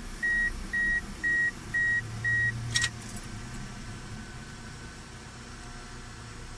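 Electronic beeps, evenly spaced at about two a second, stop with a sharp click about three seconds in, followed by a faint low hum.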